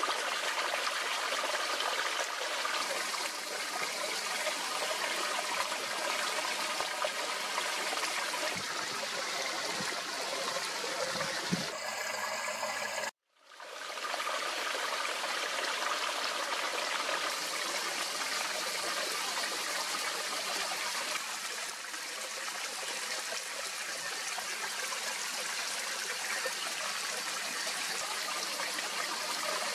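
Shallow mountain stream at low flow, trickling and babbling steadily over rocks. The sound cuts out for a moment just before the middle and fades back in.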